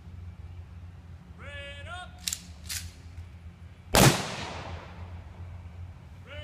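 Firing party's rifle salute at a military funeral: a drawn-out shouted command, two sharp clicks, then one loud rifle volley about four seconds in that echoes away. A low steady rumble runs underneath.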